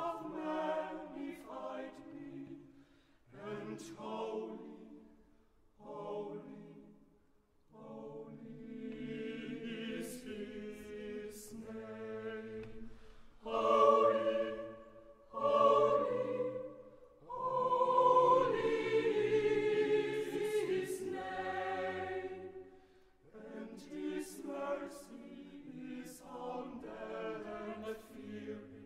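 A choir singing a sacred choral piece in phrases with short breaks between them, swelling to its loudest, longest-held passage a little past the middle.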